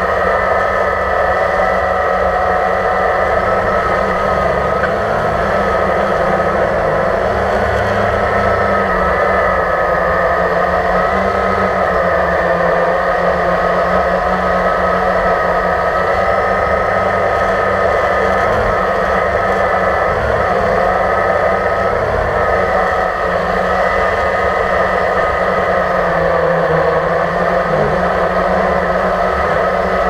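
Multirotor drone's electric motors and propellers whirring steadily, close to the on-board camera, with a high whine over a low rumble.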